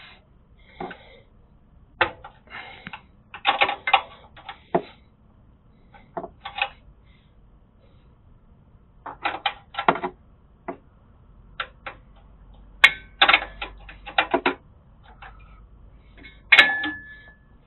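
A combination wrench clinking and clicking against the rear brake hose's hex fitting as it is worked loose, in irregular clusters of sharp metallic clicks. One clink near the end rings on for about a second.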